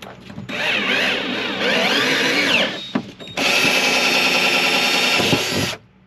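Cordless drill drilling holes in a sheet-metal slide-out tray, in two runs: the first with the motor's whine sweeping up and down in pitch, the second a steady high whine that cuts off near the end.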